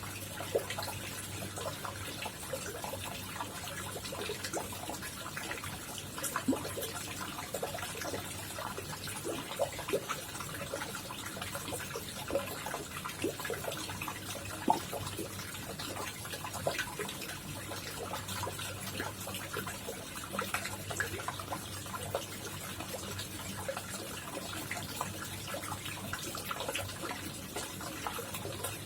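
Koi pond water trickling and splashing: a continuous stream of small drip-like splashes over a steady low hum.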